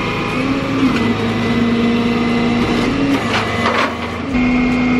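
Flatbed tow truck running its hydraulics to tilt the bed: a steady mechanical hum with a whine that shifts in pitch a few times, and brief higher squeaks about three and a half seconds in.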